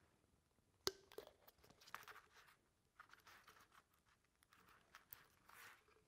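Faint handling sounds of a plastic container as its lid, with a new O-ring on it, is pressed and turned closed by hand: small clicks and rustles, with one sharper click about a second in.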